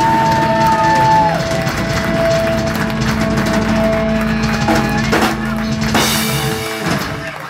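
Live heavy metal band, with distorted electric guitars, bass and a drum kit, playing the ending of a song: held guitar notes with a bend that rises and falls back, then drum hits and a cymbal crash about six seconds in before the band stops near the end.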